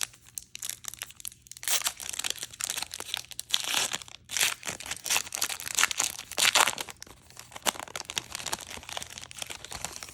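Foil trading-card pack wrappers crinkling and rustling in irregular bursts as they are handled and torn.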